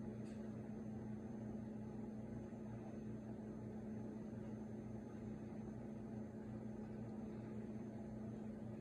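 Steady low mechanical hum with a faint hiss underneath, unchanging throughout.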